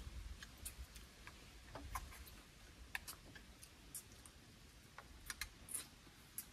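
Faint, irregular clicks and light taps of a meal being eaten: utensils against dishes and food being handled.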